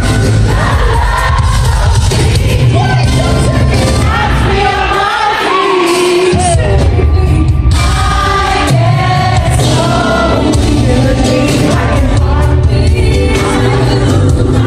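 Live R&B performance: a female vocal trio singing over a band with heavy bass, heard from the audience in a large hall. The bass drops out briefly about five seconds in, then comes back.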